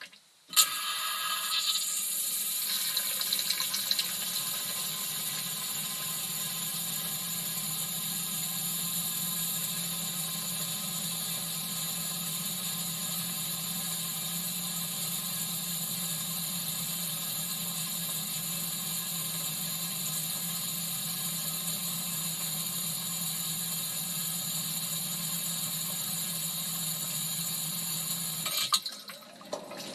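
LG dishwasher running, heard from inside the tub: a steady hum from its pump motor under the rush of water. It starts just under a second in and cuts off about a second before the end.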